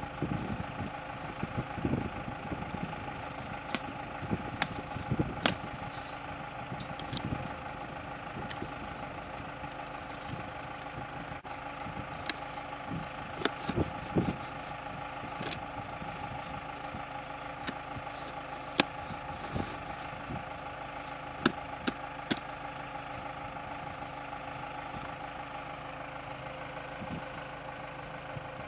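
A steady idling engine, with scattered sharp clicks, knocks and scrapes from corrugated plastic drainage tile being cut and a plastic tee fitting worked onto it.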